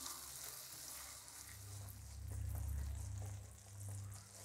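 Jaggery melting with ghee and a little water in a nonstick pan, sizzling faintly while a spatula stirs and scrapes it. A low hum comes in about a second and a half in.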